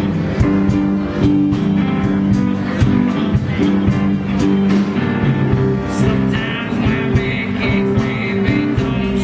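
Live blues band playing: electric guitars, bass, keyboards and a drum kit with a steady beat of drum and cymbal strokes.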